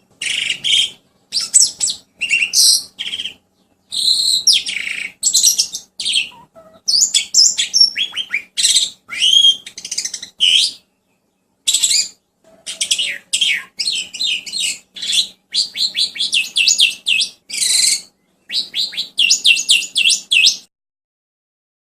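A songbird singing a loud, varied masteran song: rapid chirps, sweeping whistles and fast trills in phrases broken by short pauses, over a faint steady hum. The song cuts off abruptly about a second before the end.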